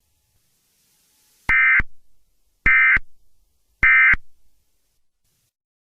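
Emergency Alert System end-of-message signal: three short bursts of SAME data tones, about a second apart, marking the end of the alert.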